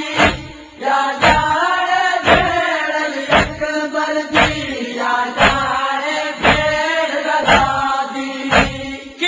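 Noha, a Shia mourning lament: male voices chant a slow, mournful melody, kept in time by a deep thump about once a second.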